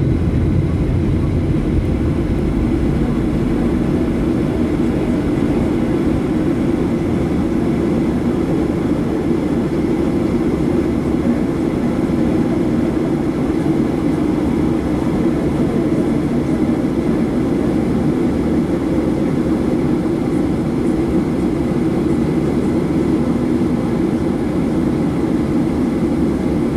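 Steady, even engine and airflow noise inside the cabin of a Boeing 737-700, its CFM56 jet engines running under power with no change in pitch.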